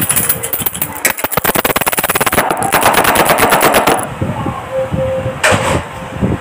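A rapid rattle of sharp clicks, about fifteen a second, that stops abruptly about four seconds in.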